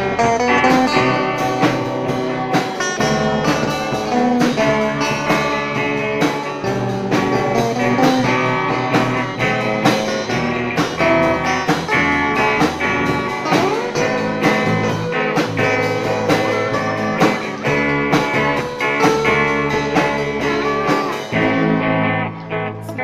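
Live amateur rock band playing an instrumental passage without vocals: electric guitars over bass guitar and a drum kit, with drum hits keeping a steady beat.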